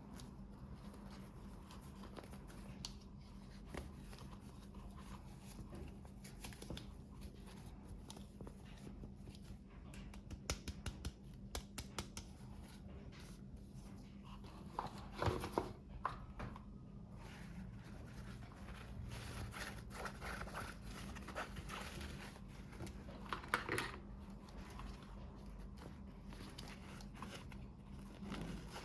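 Hands opening toy packaging: small clicks, snips and crinkles of plastic and paper. There is a quick run of clicks about ten seconds in, and louder rustles around fifteen and twenty-three seconds in.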